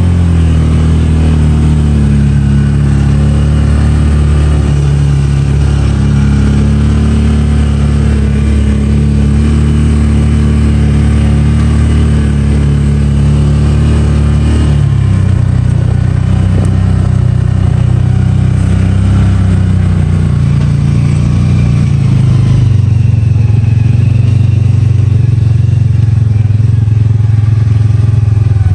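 Polaris Ranger 570 utility vehicle's single-cylinder engine running steadily under way through snow. Its pitch drops about halfway through and shifts again a few seconds later.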